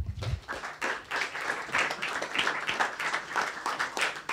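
Audience applauding: a dense run of hand claps that starts abruptly.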